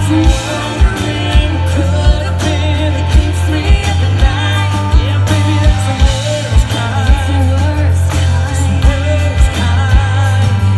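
Live band playing a country-rock song through a PA: singing over electric and acoustic guitars and bass, with a steady beat of about two drum thumps a second.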